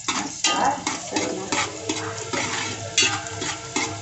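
Metal ladle stirring sliced onions and cumin frying in oil in a large aluminium pot, scraping and clinking against the pot's sides and bottom in repeated strokes about every half second.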